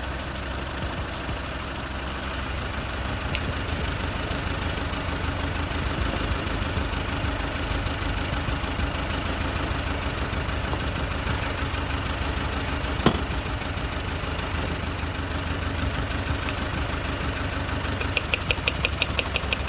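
Four-cylinder petrol engine idling rough on three cylinders: one cylinder is dead from a misfire. A single sharp click comes about 13 seconds in, and a fast, even ticking starts near the end.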